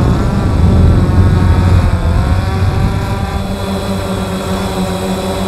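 Multirotor drone's electric motors and propellers humming steadily, heard close up, with the pitch shifting slightly as the throttle changes.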